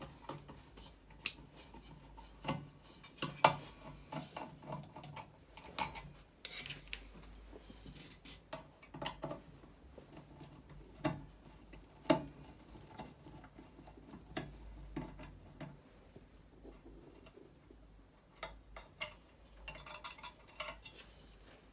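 Irregular clicks and taps from hand tools and small parts being worked while the switch is removed from a welder foot pedal. The sharpest click comes about three and a half seconds in.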